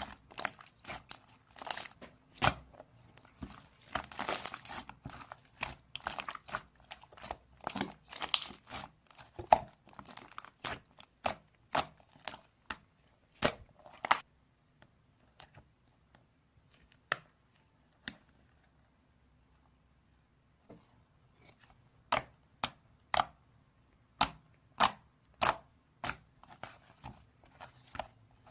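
Slime being squeezed and pressed by hand, giving a string of sharp pops and crackles. They thin out to near quiet about halfway through, then come back as evenly spaced pops, about one or two a second.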